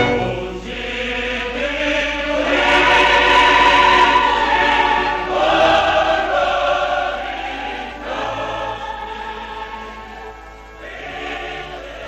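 Film score with a choir singing slow, held phrases, fading toward the end.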